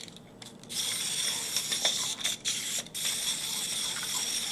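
Clockwork motor of a plastic wind-up toy robot whirring as it walks, starting about a second in and running steadily with two brief breaks.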